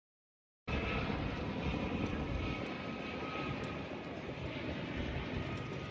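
Airplane engine droning steadily with outdoor noise, cutting in abruptly less than a second in after silence.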